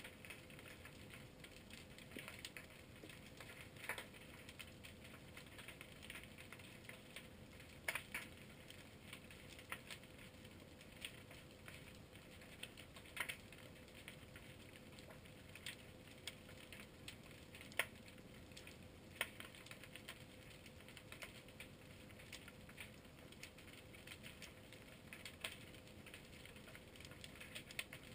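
Faint, irregular underwater clicking and crackling, with a handful of sharper clicks scattered through, over a faint steady hum.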